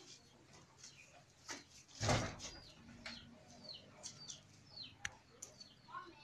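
Small birds chirping, a string of short, quick falling chirps, with a single thump about two seconds in.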